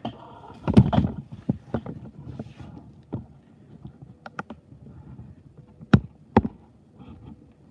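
Handling noise at a workbench: a short clatter about a second in, then a few separate sharp clicks and knocks as metal parts and tools are picked up and set down.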